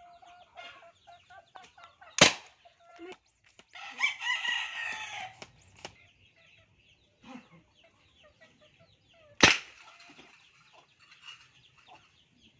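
Homemade PVC toy rifle firing twice, two sharp shots about seven seconds apart. Between them a rooster crows once, and chickens cluck throughout.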